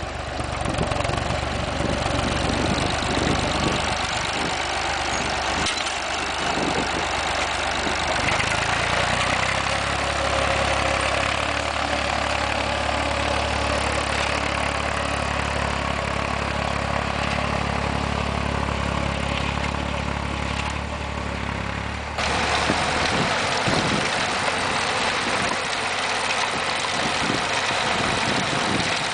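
A 1964 Massey Ferguson 35X tractor engine running steadily under load while pulling a mounted plough through soil. About 22 seconds in, the sound cuts over to a 1965 Renault Super 5 tractor running as it drives across the field with an implement behind.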